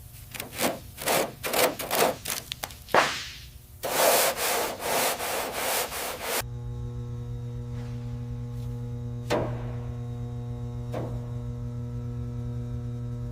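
About a dozen quick rubbing or scraping strokes in a row. Then comes a couple of seconds of continuous abrasive noise, which stops abruptly, leaving a steady low hum.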